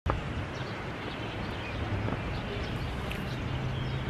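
Outdoor city ambience: a steady low hum with a few faint, short high chirps, typical of small birds.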